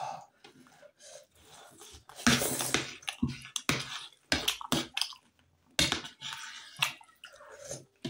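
Close-up eating sounds of momo dumplings and soup: wet chewing and sipping in short bursts, the longest about two seconds in, with sharp clicks of spoons between them.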